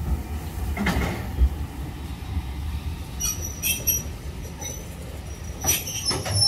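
Steam-hauled train of heritage coaches rolling past, wheels rumbling steadily. There are metallic clanks over the track about a second in and again near the end, and a high thin wheel squeal about three to four seconds in.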